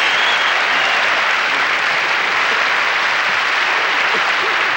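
Audience applauding steadily: a large crowd clapping.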